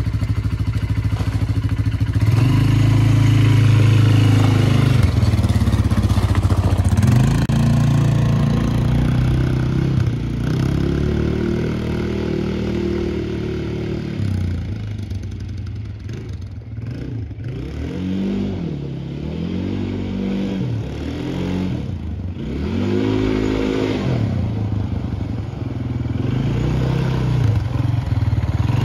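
2020 Tracker Off Road 300 ATV's single-cylinder four-stroke engine running under way, revs rising and falling with the throttle. The revs climb quickly a couple of seconds in, hold fairly steady for a while, then rise and fall several times in short surges in the second half.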